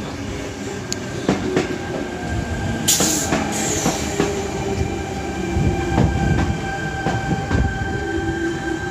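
Sydney Trains Tangara electric train running past along the platform: a steady electric motor whine with several tones, wheels clicking over rail joints, and a brief high hiss about three seconds in.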